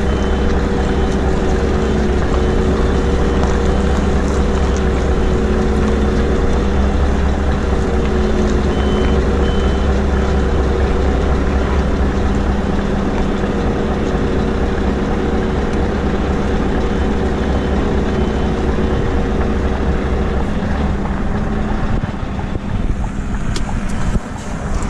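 Scania truck's diesel engine running steadily as the truck and trailer reverse, with a reversing alarm beeping in a quick on-off pattern through the first part. The engine hum drops away near the end.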